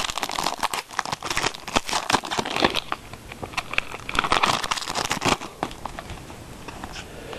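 Trading-card pack wrapper crinkling and cards being handled: a run of rustles, crackles and small clicks.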